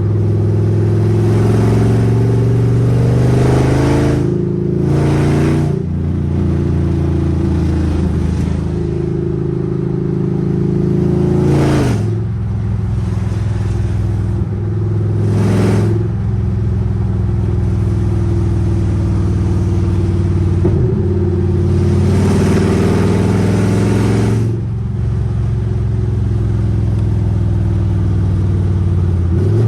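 Chevrolet Camaro SS's 6.2-litre V8 with long-tube headers running loud while driving, its pitch rising and falling with throttle and gear changes, with several short, louder acceleration pulls.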